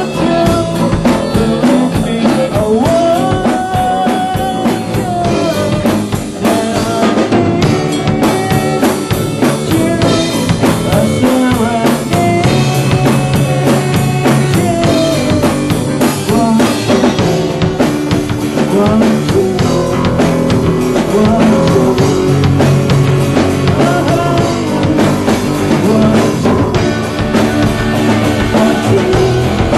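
A rock band playing live, with a full drum kit driving it over bass and guitar.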